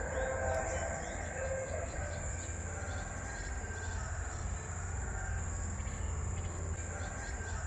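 Insects trilling steadily in one continuous high-pitched note, over a low background rumble.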